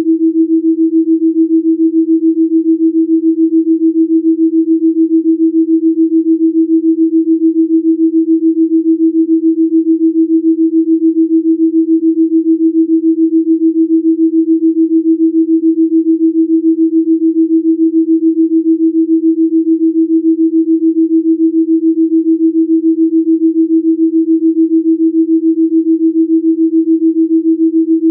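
Electronically generated low-pitched pure sine tone held steady, with a fast, even pulsing in loudness from the beat between its tones: a delta binaural-beat Rife frequency tone.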